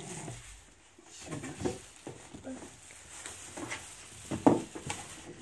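A plastic bag rustling and crinkling, with irregular handling knocks against a cardboard box, as a wrapped item is pulled out of the box.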